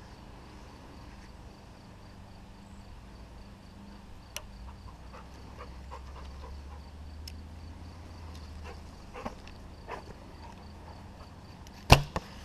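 Faint steady pulsing chirp of an insect, with a faint low rumble through the middle and a few light clicks. Near the end comes a single sharp loud snap, the loudest sound, followed by two smaller clicks.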